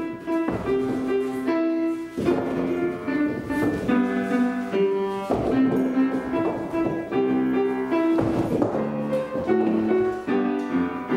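Piano music playing as the accompaniment to a ballet class exercise, a melody over changing chords.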